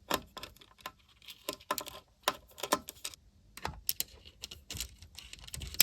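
Irregular light clicks and taps of hands working at the screen adjustments inside an open Macintosh Plus, with a sharper click at the very end.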